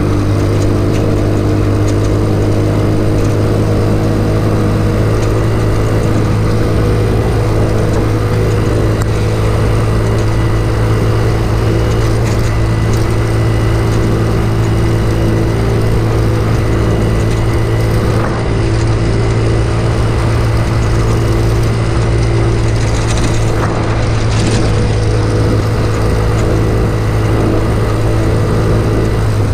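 Off-road go-kart's small engine running at a steady, even pitch while driving, with its air filter removed, heard from the driver's seat.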